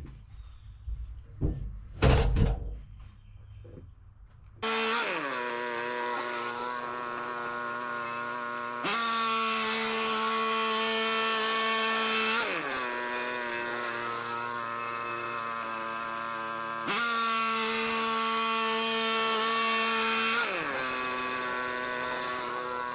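Woodland Mills HM126 bandsaw mill running and cutting pine, a steady whine that starts abruptly about five seconds in and dips in pitch every three to four seconds, preceded by a few light knocks.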